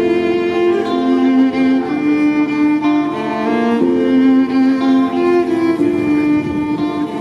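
Violin playing a slow melody of held notes that step up and down in pitch, bowed without a break.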